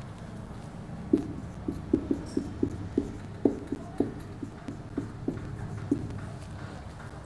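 Marker pen writing on a whiteboard: about a dozen short taps and strokes as the tip strikes and drags across the board, starting about a second in and stopping near the end.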